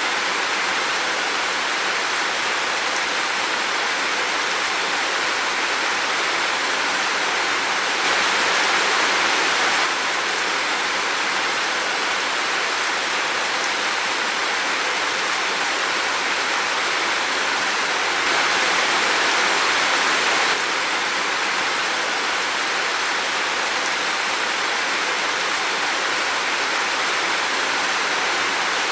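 Heavy rain falling steadily, an even rushing hiss, a little louder for a couple of seconds twice.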